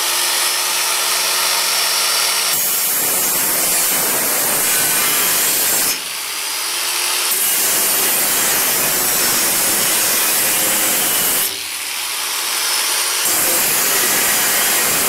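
Chicago Electric angle grinder with a thin cutoff disc, first spinning free with a steady whine, then grinding into the edge of a steel plate to round it off. Twice, about six seconds in and again near twelve seconds, it eases off the metal and the whine returns briefly before it bites in again.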